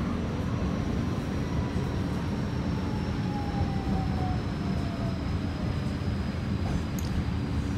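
Ride noise inside a moving light rail tram: a steady rumble with a low hum, and a faint whine that slowly falls in pitch.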